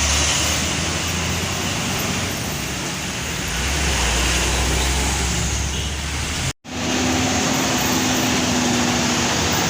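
Road traffic with heavy vehicles passing: continuous engine and tyre noise with a low engine drone. About two-thirds of the way in the sound cuts out for an instant and comes back as steady traffic with a held engine hum.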